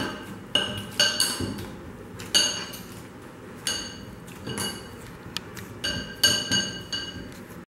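A glass mixing bowl clinking, with a short ring after each knock, struck about once a second by the hand kneading dough in it.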